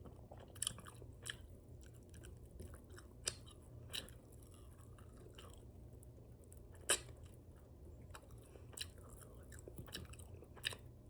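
Open-mouthed chewing of chicken wings: irregular wet smacks and clicks, the loudest about seven seconds in.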